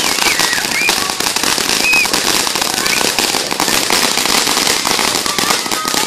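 Ground fountain firework spewing sparks and shooting stars, a loud, dense crackle of tiny pops that goes on without a break.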